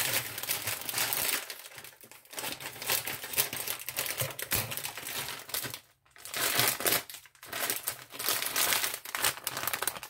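Plastic bag of frozen California-blend vegetables crinkling as it is cut open with scissors and handled, in irregular bursts with a few short pauses.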